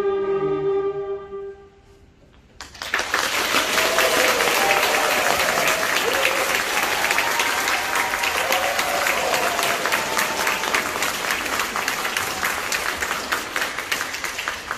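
A school wind band's final held chord dies away, and after a moment's pause an audience breaks into loud, sustained applause, with a few voices calling out over the clapping.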